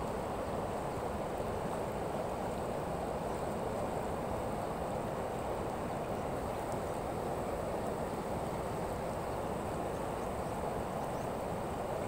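Steady rush of a shallow river flowing over a stony bed.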